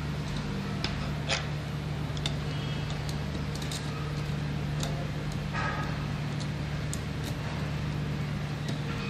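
Scattered light clicks and a short scrape as a screwdriver and wires are worked at the terminal screws of a rotary changeover switch, over a steady low hum.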